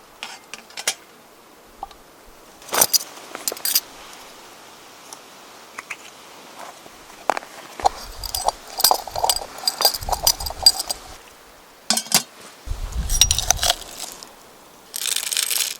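Small hard objects clinking and rattling as they are handled, in scattered short clicks with a busier run of clinks in the middle and a rustle near the end.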